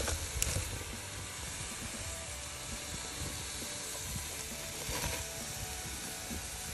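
Portobello mushrooms and salmon in foil sizzling on a grill: a steady hiss that swells slightly about five seconds in.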